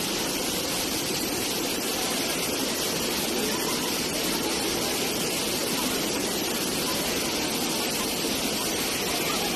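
Steady rushing of waterfall cascades pouring into a pool, with faint voices of people.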